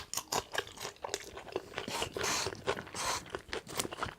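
A person chewing a mouthful of salad open-mouthed and close to the microphone, with irregular crunching clicks.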